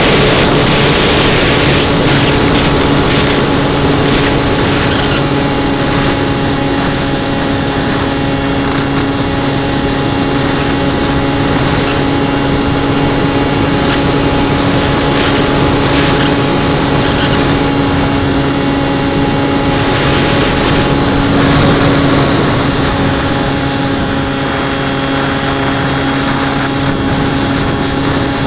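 Electric RC airplane in flight heard from its onboard camera: the brushless motor (NTM 4248, 650 kV) and 11x8 propeller make a steady hum under heavy wind rush over the microphone.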